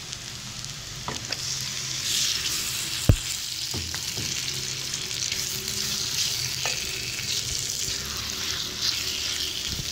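Marinated chicken pieces sizzling in hot oil in a non-stick kadai as they are tipped in and stirred with a silicone spatula; the sizzle swells about two seconds in. A sharp knock comes about three seconds in.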